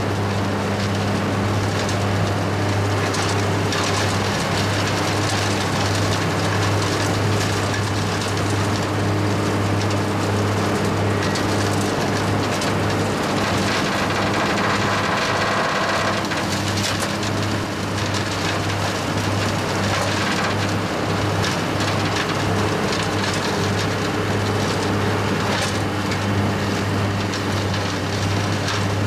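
Tractor-driven RotoGrind tub grinder running under load, shredding branches and green waste. A steady engine-and-mill drone with a constant crackle and clatter of wood being broken up.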